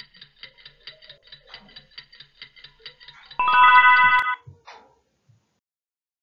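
Alarm clock sound effect: quick ticking, about five ticks a second, then about three and a half seconds in a short, loud ring of under a second that cuts off suddenly, signalling that the answering time is up.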